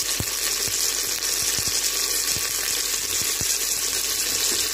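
Sliced onions and freshly added tomato pieces frying in hot oil in a pressure cooker: a steady sizzling hiss with a few faint pops scattered through it.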